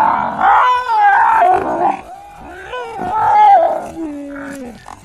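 Loud animal vocal calls: two long calls that waver in pitch, then a lower call that falls in pitch near the end.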